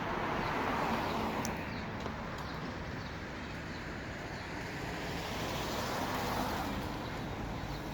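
Street traffic: cars passing on a city street, a steady wash of tyre and engine noise that swells slightly about a second in and again around six seconds.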